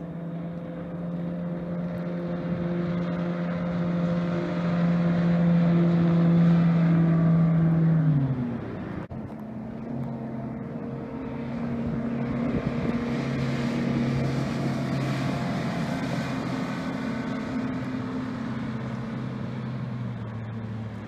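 Ranger bass boat's outboard motor running at high speed across the water, a steady engine tone that grows louder and then drops in pitch about eight seconds in as the boat passes. After a brief break, the motor runs again at a lower, steady pitch, swelling in the middle and fading near the end.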